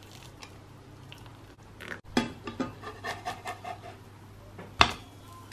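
Hot water poured faintly from a kettle into a glass mug, then a metal spatula scraping and tapping on a non-stick frying pan as pancakes are turned, with one sharp knock near the end.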